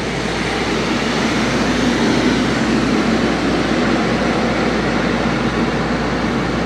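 A heavy vehicle's engine running: a steady rumble with hiss that swells a little over the first two seconds and then holds.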